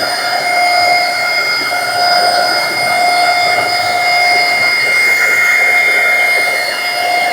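Electric paint sprayer running steadily while spraying primer onto metal roof panels: a high motor whine over a hiss of air and spray. The lowest note drops out briefly a couple of times.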